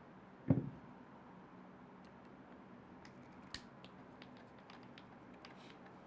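A single short knock about half a second in, then faint scattered ticks as a small screwdriver is picked up and its tip is set into a screw in a plastic RC car chassis.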